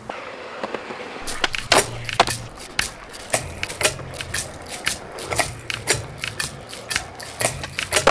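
Skateboard wheels rolling on concrete with a low rumble, and repeated sharp clacks of the board and tail against the ground, starting about a second in.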